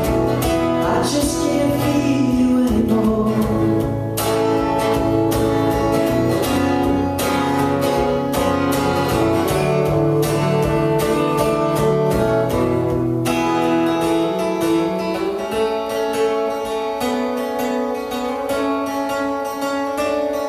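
Instrumental break of a live song: acoustic guitar strumming chords. The low notes drop away about two-thirds of the way through, leaving a lighter guitar sound.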